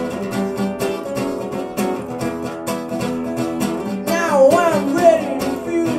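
Acoustic guitar strummed in a steady rhythm, with a young man's voice singing a phrase about four seconds in, live through a small PA.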